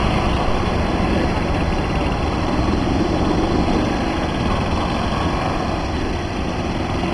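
Golf carts driving past on a paved cart path: a steady, unbroken running noise, strongest in the low end.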